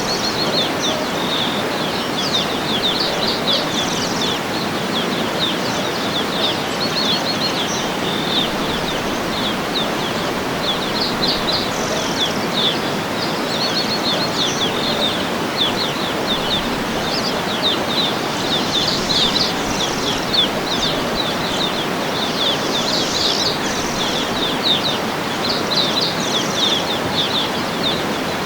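Waterfall rushing steadily, with many birds chirping over it in quick runs of short high notes throughout.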